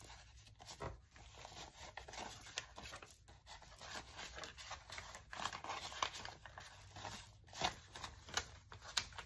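Paper banknotes rustling and flicking as they are counted by hand, with now and then a sharp snap of a bill.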